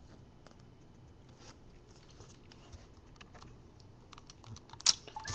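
Faint clicks and light rustles of trading cards being handled and set down on a table, with one sharper click near the end.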